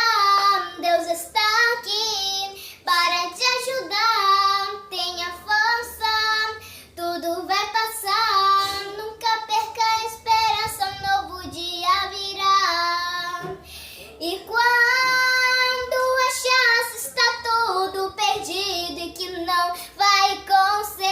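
A child singing solo, with long held notes and one note sustained about two seconds near the middle.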